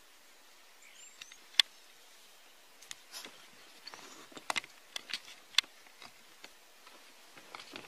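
Quiet outdoor ambience with scattered sharp clicks and snaps, the loudest a single crack about one and a half seconds in, and a few faint high bird chirps near the start.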